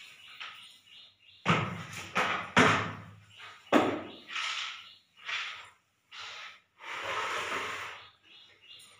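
Long-handled broom sweeping a tiled floor: a run of irregular brushing strokes, with a few sharper knocks in the first half as the broom strikes the floor.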